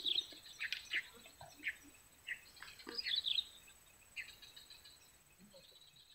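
Birds chirping: short, high calls repeated every half second or so, several of them sliding downward in pitch.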